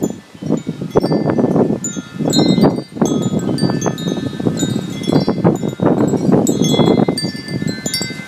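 Wind chimes ringing constantly, tossed by strong, gusty dust-storm wind, while the wind rushes and buffets the microphone.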